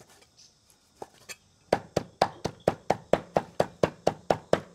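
A cleaver chopping pork on a wooden chopping board. A few faint knocks come first, then from about a second and a half in a steady run of sharp chops at about four a second, dicing the meat coarsely rather than mincing it fine.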